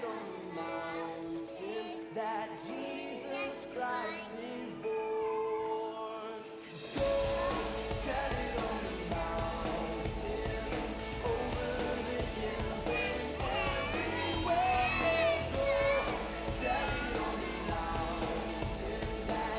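A group of young children singing a Christmas song over musical accompaniment; about seven seconds in the accompaniment becomes fuller, with a steady bass underneath.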